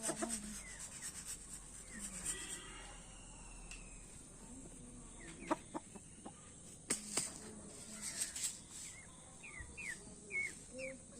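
Parrot-beak aseel chickens clucking, with a few sharp clicks in the middle and a run of short, high chirps near the end.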